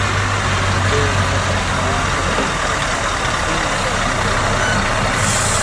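A small motor running steadily, a low hum under a rushing hiss, which turns briefly brighter and hissier near the end.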